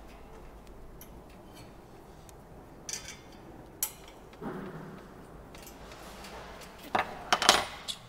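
Scattered metallic clicks and clinks of hand tools against a steel bracket and mesh panel, with a louder cluster of knocks and clicks near the end.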